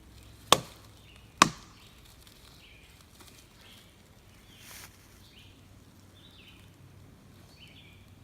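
Two loud wood knocks on a tree, about a second apart, given as a call signal; no knock answers them, and only faint bird chirps follow.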